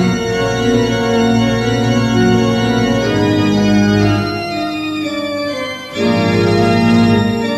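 Organ music playing held chords. The harmony shifts about three seconds in, fades somewhat, then changes abruptly to a louder chord about six seconds in.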